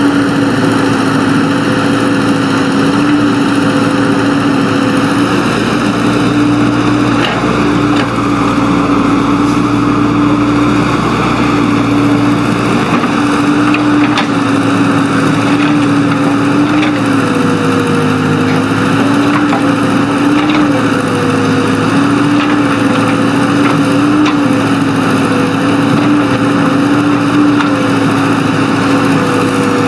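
Earthmoving machine's diesel engine running steadily under work, its pitch dipping a few times in the second half as it takes load.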